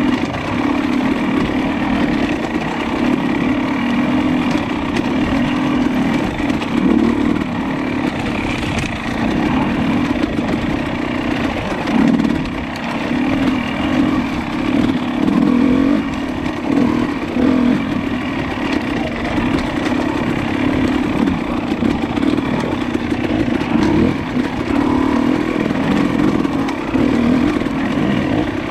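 Dirt bike engine running while riding a trail, heard from on board, its note rising and easing with the throttle and briefly dropping about twelve seconds in.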